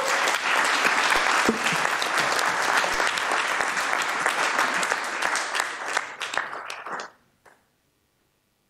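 Audience clapping for about seven seconds, then dying away and stopping.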